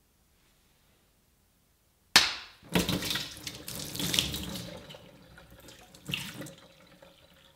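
Taped water balloon pierced with a craft knife about two seconds in: it bursts with a sharp snap and the water gushes out, splashing onto the counter and into a stainless-steel sink, with a second splash about six seconds in. The balloon splits open instead of releasing a smooth laminar stream.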